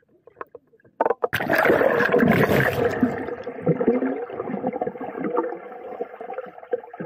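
Swimming-pool water heard from an underwater camera: about a second in, a loud rush of splashing and bubbles. It then settles into a muffled underwater rumble and gurgling as swimmers move past the microphone.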